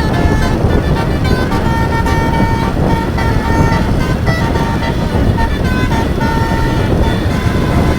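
Indonesian bus telolet horn playing a quick tune of short tooting notes over steady, loud engine and road noise.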